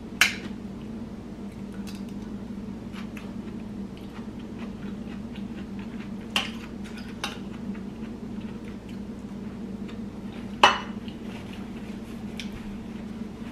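A spoon and fork clinking now and then against a ceramic bowl and plate during a meal: a handful of sharp clinks, the loudest about eleven seconds in, over a steady low hum.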